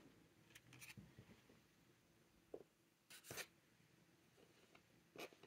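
Faint handling sounds of a paper swatch card and small ink sample vials being moved about on a tabletop: a few soft taps and rustles, the most distinct about three seconds in.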